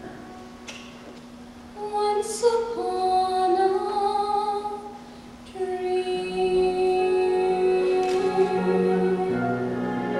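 A woman singing a slow ballad in long held notes, in two phrases with a short break about five seconds in, over soft sustained accompaniment.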